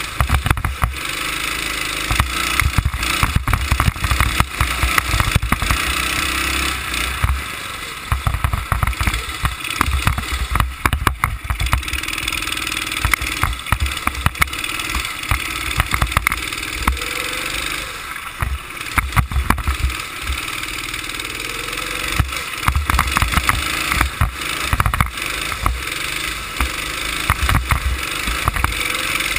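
Go-kart engine running through a lap on the track, heard from on board the kart, its pitch rising in places under acceleration. Wind buffets the microphone in repeated low rumbling surges, and many short knocks come through the chassis.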